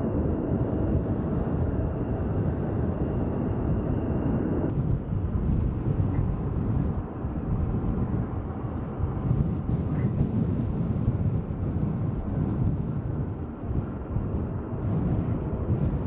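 Fighter jet engines running as the jets taxi, a steady rumble with a thin high whine over it, which stops suddenly about five seconds in. Then the steady deep rumble of a four-engine C-130 Hercules turboprop on the runway.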